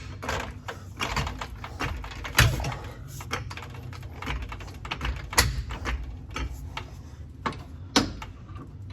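Irregular metallic clicks and knocks, with a few sharper clanks, from a coil spring being worked into the rear suspension of a BMW E46 M3.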